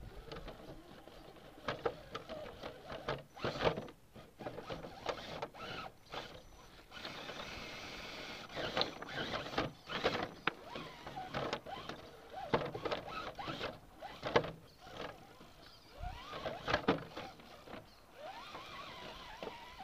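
Axial SCX10 RC rock crawler's electric motor and gears whirring in short, uneven bursts, with its tyres and chassis knocking and scraping on the rocks as it crawls up the boulders.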